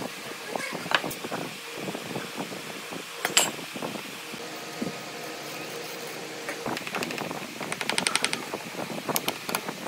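Woodworking shop noises: scattered knocks and clicks on wood, a steady hum for a couple of seconds in the middle, and a quick rattle of rapid clicks about eight seconds in.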